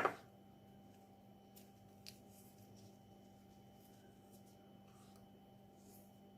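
Quiet room tone with a steady faint electrical hum and a few soft, faint clicks and rustles.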